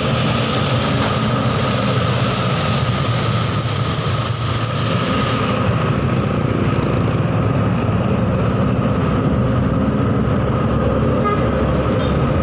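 Traffic noise from riding close behind a bus on a town road: a loud, steady engine rumble and road noise, with a steady high whine throughout.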